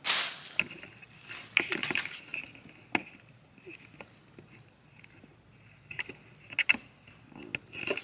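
Light handling sounds: a short rustle at the start, then scattered soft clicks and rustles every second or few seconds.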